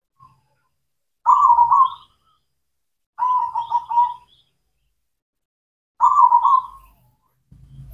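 Zebra dove (perkutut) singing its cooing song: three short phrases of rapid, stuttering coos, a second or two apart.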